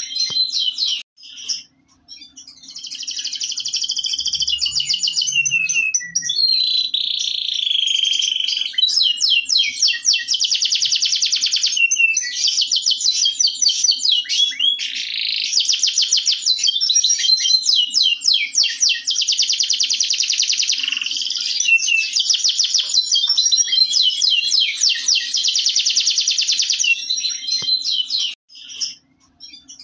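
Local canary (kenari lokal) singing a long, continuous song of rapid trills and rolling phrases, with short breaks about a second in and near the end.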